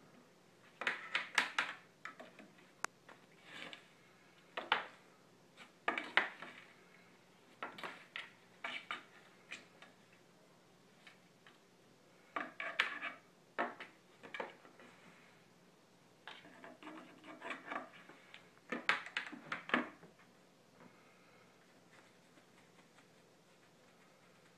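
A cat batting at a red feathered toy through slats: flurries of rattling knocks and scraping as the toy and paws hit the slats and the floor, each a second or two long, stopping about twenty seconds in.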